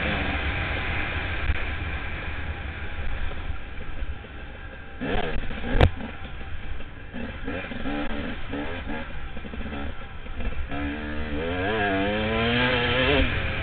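Enduro dirt bike engine running under varying throttle over rough trail, its pitch rising and falling, with a sharp knock about six seconds in and the engine revving up in rising glides near the end.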